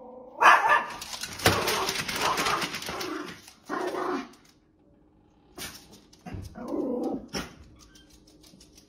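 Small curly-coated dog barking in several bursts at a door's mail slot as mail comes through it.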